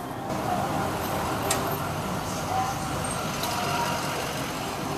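A motor vehicle running on the street, with indistinct voices around it and two brief sharp clicks.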